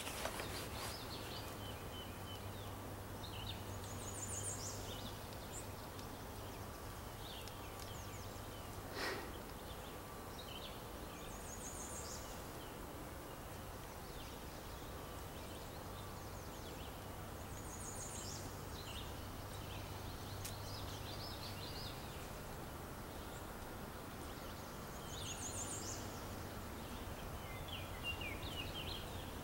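A songbird singing the same short phrase about every eight seconds, a high trill with lower notes, over a steady outdoor background hiss; a single knock about nine seconds in.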